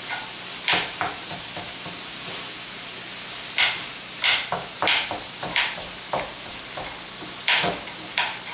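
A kitchen knife cutting green peppers on a plastic cutting board, about eight sharp, irregular strokes, over the steady sizzle of beef browning in a pan.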